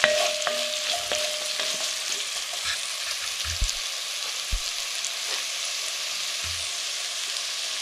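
Chopped onions sizzling steadily in hot oil in a cast-iron Dutch oven, frying until translucent. A wooden spatula stirs them, scraping and knocking now and then against the iron pot.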